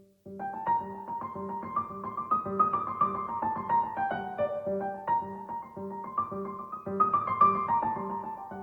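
Background piano music: a steady repeated low note about twice a second under a melody of single notes, growing fuller just after the start.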